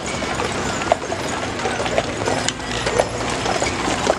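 Hooves of a team of harnessed draft horses clip-clopping on asphalt as they walk past a wagon, with scattered sharper hoof strikes.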